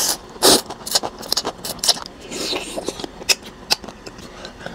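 Close-miked eating sounds: rice vermicelli noodles slurped in near the start, then chewing with a run of short wet clicks and smacks from the mouth.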